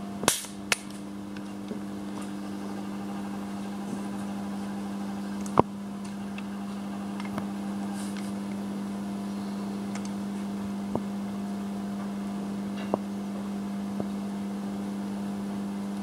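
A steady low machine hum, with a few light metallic clicks and taps as the threaded compression-gauge hose fitting is handled at the engine; the sharpest click comes about five and a half seconds in.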